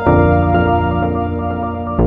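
Background music: slow ambient new-age style track with sustained keyboard chords, a new chord starting just after the opening.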